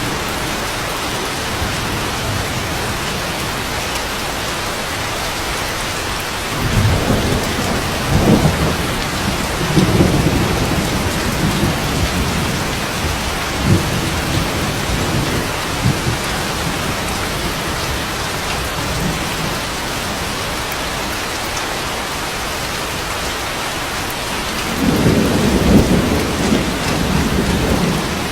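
Steady rain falling, with low rolling thunder that swells several times in the middle and again near the end.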